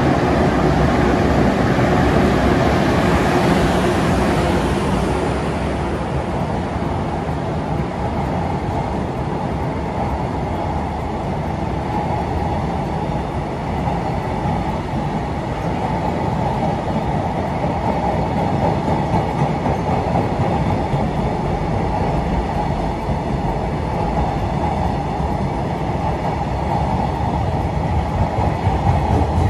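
A JR Freight electric locomotive passes close by at the head of a container freight train, followed by a long string of container flat wagons. The wagons rumble past with steady wheel clatter. The locomotive's higher-pitched noise fades about five seconds in, leaving the low, even rumble of the wagons.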